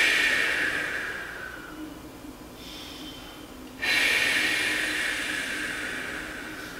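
A man breathing out long and audibly while holding a deep knees-to-chest stretch. One breath fades out about two seconds in, and a second starts about four seconds in and slowly fades.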